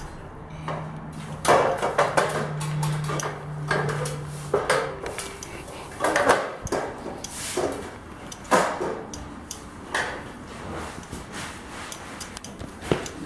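Feet and hands on the steel frame and rungs of a mobile scaffold tower during a climb: irregular knocks and clanks. A steady low hum runs through the first few seconds.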